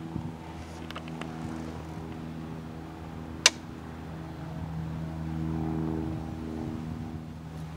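A motor running steadily with a low hum that swells a little past the middle, and one sharp click about three and a half seconds in.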